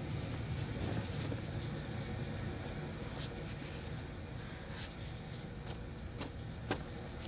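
A crumpled tissue dabbing and blotting a wet watercolor wash on paper: a few faint soft taps and rustles over a steady low hum.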